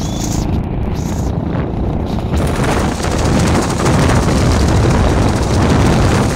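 Wind buffeting the phone's microphone during a motorbike ride, over the rumble of the engine and the road. The noise grows louder and fuller about two and a half seconds in.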